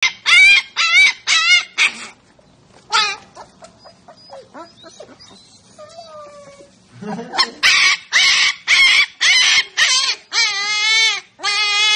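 Husky puppy yelping in quick runs of short, high cries, with quieter whines in between, ending in two longer, lower howls.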